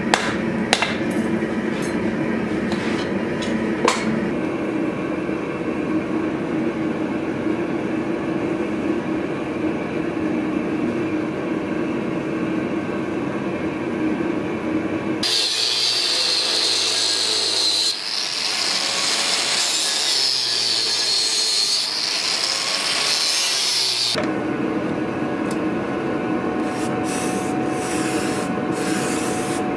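Several hammer blows ringing on hot steel on an anvil in the first few seconds, over a steady workshop hum. About halfway through comes roughly nine seconds of loud rasping as the steel blank clamped in a vise is filed or abraded, then the hum returns with a few light clicks.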